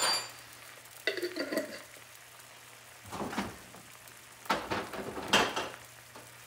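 A metal utensil clinks once against the pan right at the start, then a skillet of chicken stock with onions, peppers and capers simmers, with a few short spurts of sizzling and bubbling.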